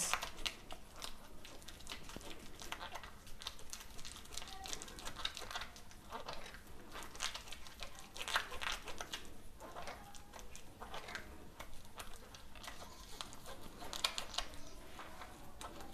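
Spatula pressing and scraping a thick mango-and-yogurt mixture through a stainless steel mesh strainer: faint, irregular scraping strokes.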